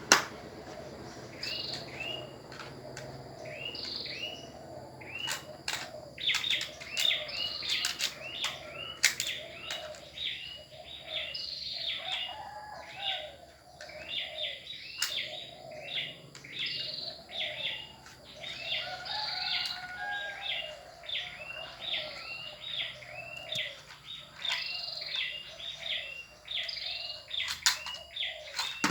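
A small bird chirping over and over, short high chirps coming two or three a second, with a few sharp clicks here and there.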